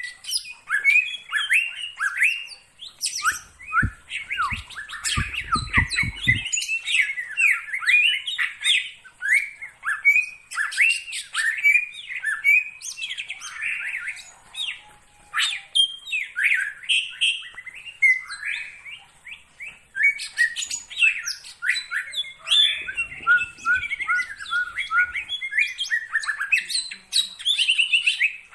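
Cucak ijo (green leafbird) singing a fast, unbroken, varied song of quick chirps and whistling phrases. A few low thuds come through about four to six seconds in.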